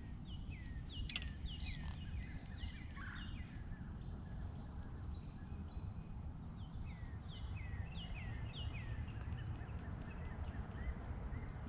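A bird calling a quick series of short chirps that drop in pitch, in two runs, over a steady low rumble of wind on the microphone.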